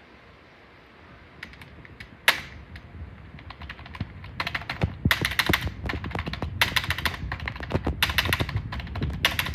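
Computer keyboard being typed on: a few scattered key clicks after a second and a half of quiet, one loud clack about two seconds in, then typing that grows faster and louder with heavy strokes.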